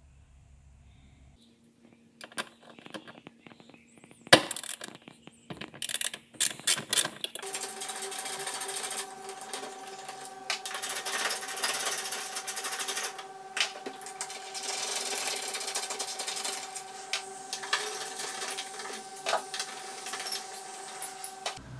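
Metallic clicks and clinks of a hand tool fitted with a hex bit socket, working the fasteners of a metal seat-back bracket, with one sharp clink about four seconds in. From about seven seconds a steady hum runs underneath.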